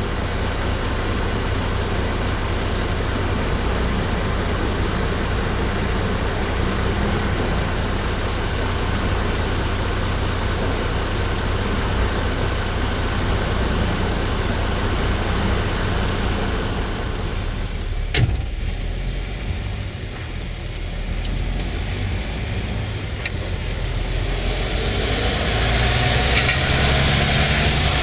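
Diesel engine of a MAN TGX truck running steadily. There is a single sharp click about two-thirds of the way through, and the sound grows louder and brighter near the end.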